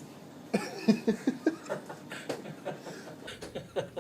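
A person laughing: a run of quick, short chuckles starting about half a second in.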